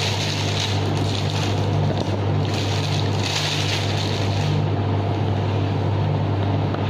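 A steady low machine hum runs throughout, over a hiss that swells and fades a few times. The swelling hiss is plastic bag rustle as a spatula spoons soft topping batter into a plastic piping bag.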